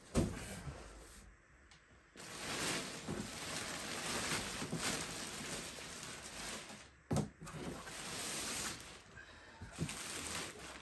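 Large cardboard statue box being handled: a thump at the start, then long stretches of scraping and sliding, with a couple of knocks about seven seconds in.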